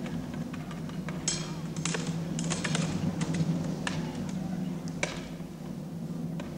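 Sharp metallic clicks and clatters, half a dozen or so over a few seconds, from the stacked boards and cylinders of a rola-bola balancing rig shifting under the balancer, over a steady low hum.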